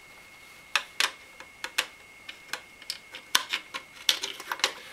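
Irregular light clicks and taps of a CPU cooler backplate and its mounting bolts being handled and fitted against the back of a motherboard, starting about a second in.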